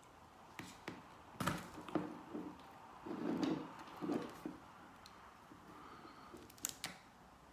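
Plastic opening tool prying at the seam of an iPod Classic's case: scattered sharp clicks with muffled scraping and handling in between, and two sharper clicks near the end.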